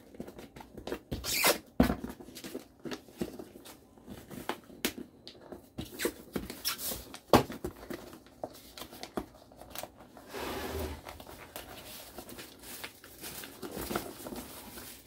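A sheet of paper being handled and folded: irregular rustling and crinkling, with a longer swish about ten seconds in.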